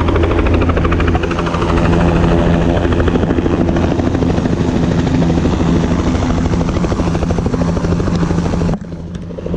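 Helicopter running loud and steady: a low engine and rotor hum with a fast, even blade chop. It drops abruptly to a quieter level near the end.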